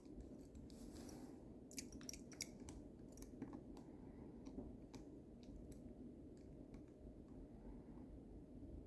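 Faint metal clicks and light scraping from lock picks working the levers inside a lever lock, with a cluster of clicks about two seconds in and scattered single clicks after.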